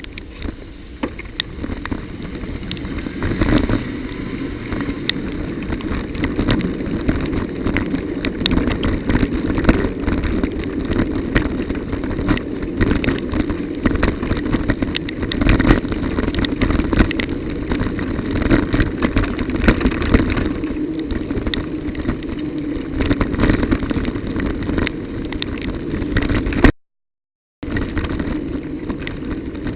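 Bicycle being ridden over a rough, wet, broken road surface: a steady rumble with frequent rattles and knocks from the bike. The sound cuts out completely for about a second near the end.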